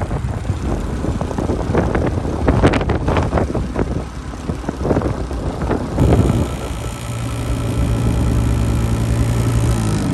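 Wind buffeting the microphone in uneven gusts, then about six seconds in a small engine starts sounding, running at a steady speed.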